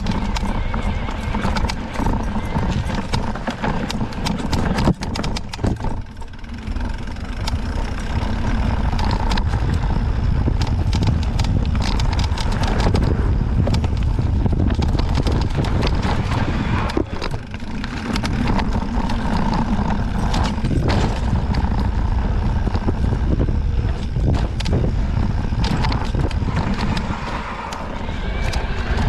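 Mountain bike ridden over rough trail: a steady low rumble with many sharp clicks and knocks as the bike goes over roots and rocks. Among them is cracking from the Fox 38 suspension fork as it compresses, a fault bad enough that the rider means to send the fork back under warranty.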